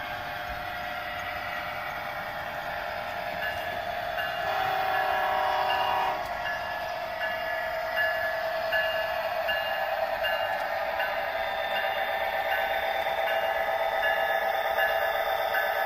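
Model diesel locomotive's onboard sound system: a steady engine hum, with a horn blast from about 4.5 to 6 seconds in, then a short tone repeating a little faster than once a second.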